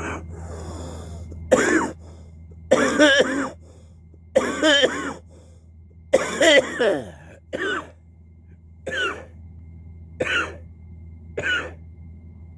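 A man coughing hard in a run of about eight coughing fits, the longest in the first half and shorter ones after, from pipe smoke after a hit of marijuana. A steady low hum runs underneath.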